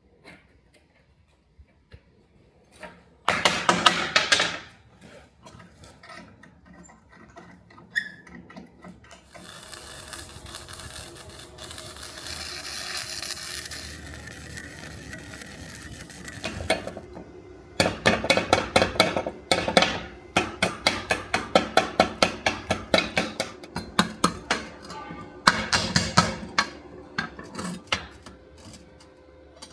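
Hand metalworking on steel: a brief clatter of metal, then a hiss, then long runs of quick rhythmic strokes, about four a second, in several bursts.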